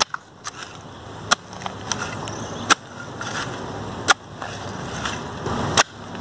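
Small hand hoe chopping into grassy soil, about five sharp strikes roughly a second and a half apart, with dirt and grass scraping and rustling between the blows.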